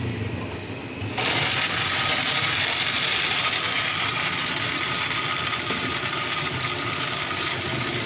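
Electric countertop blender switched on about a second in, its motor running steadily at high speed with a thin whine over the whirring as it blends a mint, lemon and sugar-syrup drink.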